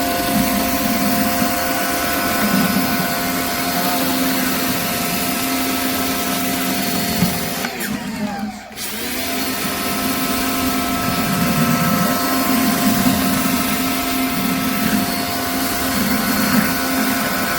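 Pressure washer running with a surface cleaner spraying water onto concrete: a steady machine hum under a wide hiss of spray. Just past the middle the spray stops for about a second and the machine's pitch dips, then the spray starts again.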